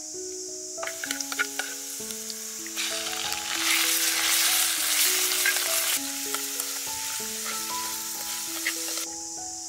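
Garlic sizzling in hot oil in a frying pan, with a few clicks of a spoon against the pan. About three seconds in, raw shrimp go into the pan and the sizzle grows much louder, easing after about six seconds as they are stirred, then cutting off near the end. A soft background music melody plays throughout.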